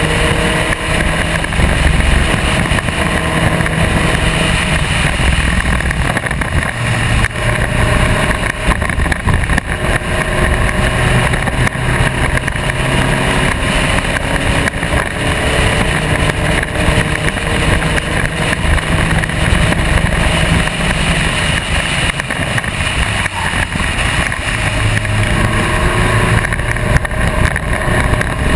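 Spec Racer Ford race car's engine at racing speed, its pitch climbing and dropping again and again as it accelerates through the gears and slows for corners.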